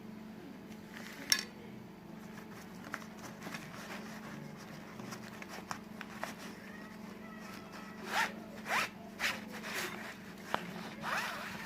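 Small objects being handled: a sharp click a second in, scattered lighter clicks, then three or four short rasping strokes in the second half, over a steady low hum.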